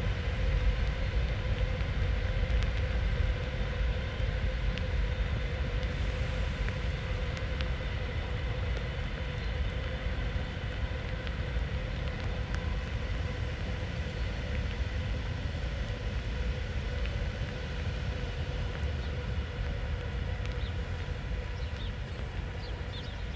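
Steady low rumbling outdoor noise with a faint steady hum, slowly fading; a few short bird chirps near the end.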